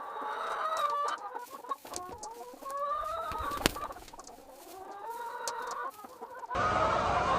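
Hens clucking, a string of short calls that rise and fall in pitch, with one sharp click about halfway through. Near the end the sound cuts abruptly to a louder, noisier stretch that still carries fowl calls.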